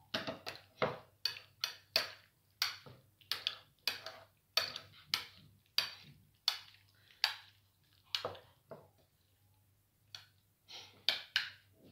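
Metal spoon scraping and clinking against a white ceramic bowl while stirring diced fresh tomatoes, about two strokes a second, easing off after about eight seconds, with a few more strokes near the end.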